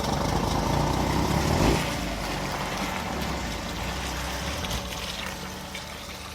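1958 GMC PD-4104 Greyhound bus's Detroit Diesel two-stroke engine running as the bus backs up, growing gradually fainter as it moves away.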